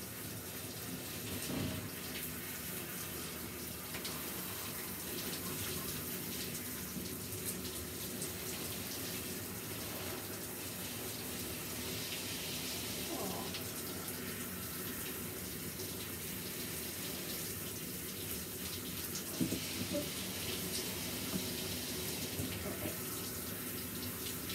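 Handheld shower sprayer running steadily, rinsing conditioner out of a Pomeranian's coat in a plastic tub, with a few light knocks about three-quarters of the way through.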